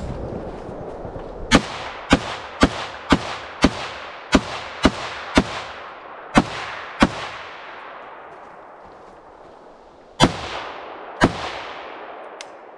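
Rifle shots fired one at a time: a string of ten at about two a second, a pause, then two more spaced a second apart. Each shot is followed by a long decaying echo.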